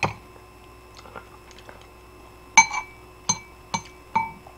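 Metal fork clinking against a bowl of ramen: a light tap at the start, then four ringing clinks in the last two seconds.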